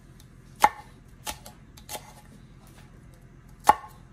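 Chef's knife chopping green onions on a wooden cutting board: four sharp knocks of the blade on the board at a slow, uneven pace, the loudest about half a second in and near the end.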